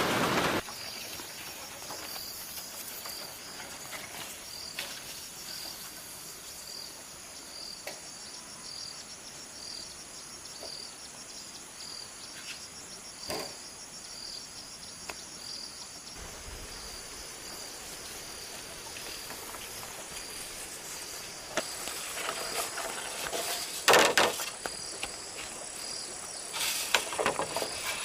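An insect chirping steadily, a high chirp repeated about one and a half times a second over quiet outdoor background. Near the end, louder scraping and a knock join in, like bamboo being handled.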